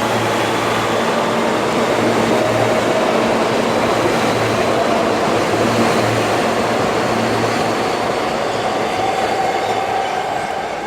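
R160 subway train pulling out of a station, its wheels and motors running steadily and fading near the end. Under it a low hum cuts in and out irregularly, from the train's faulty air compressor.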